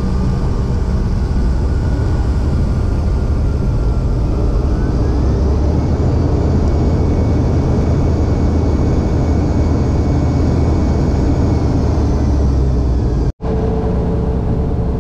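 Jet airliner cabin noise heard from a window seat while taxiing: a steady low rumble with a few whining engine tones, one of which rises in pitch about five seconds in. Near the end the sound cuts out for an instant, then a steady hum resumes.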